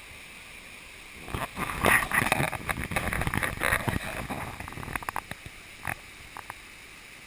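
Steady rush of a waterfall and rocky stream. From about a second in to about five seconds in it is covered by loud, irregular rustling and knocking as the handheld camera is handled and turned around, with a few lighter clicks near the end.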